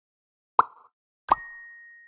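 Two short cartoon-style pop sound effects, less than a second apart; the second carries a high chime that rings on and fades.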